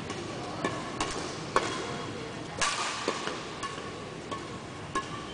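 Badminton rackets striking a shuttlecock during a rally, a series of sharp cracks at irregular spacing, the loudest about a second and a half and two and a half seconds in, with fainter hits from neighbouring courts and a short echo of the large hall after each.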